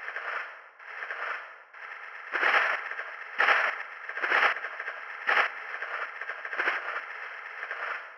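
Sound-design track of crackling, scraping noise pulses that swell and fade about once a second. From about two and a half seconds in, four louder pulses with a deep low thud come a second apart, then softer pulses return.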